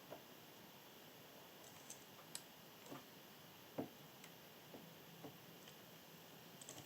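Near silence with faint room hiss and a few scattered small clicks and taps from hand tools during close soldering work, the sharpest about four seconds in.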